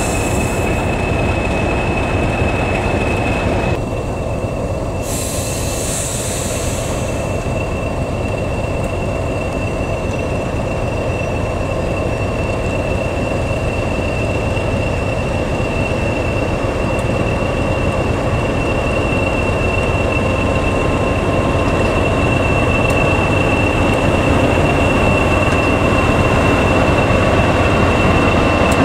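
British Rail Class 40 diesel locomotive idling at a standstill: a steady low engine rumble under the high, steady whistle typical of its turbocharged English Electric V16. Steam hisses from the train-heating hose in the first second and again briefly a few seconds in.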